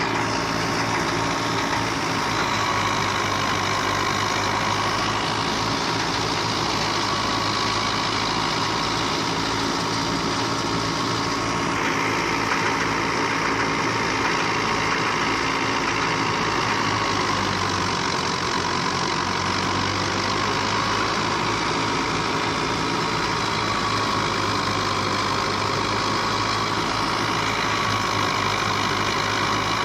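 Engine-driven wheat threshing machine running steadily: an engine hum under a continuous rushing machine noise, which gets brighter about twelve seconds in.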